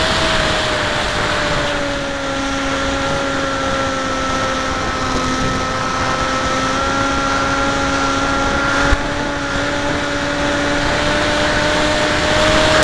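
Electric RC plane motor and pusher propeller whining at a steady pitch, heard from onboard the aircraft, with wind rushing over the airframe. The pitch eases slightly in the first couple of seconds, then holds. There is one short click about nine seconds in.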